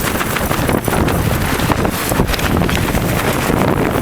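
Strong blizzard wind buffeting the microphone, a loud, rough, continuous rush.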